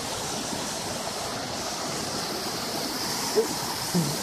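Rocky stream rushing over boulders, a steady wash of water. Two short bumps from the camera being handled come near the end.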